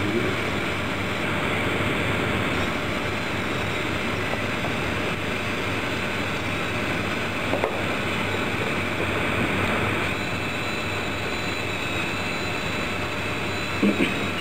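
Small electric drive motors of a gantry robot running with a steady mechanical whir and a faint high whine as the carriage travels along its rail. Two short clicks, about halfway and near the end.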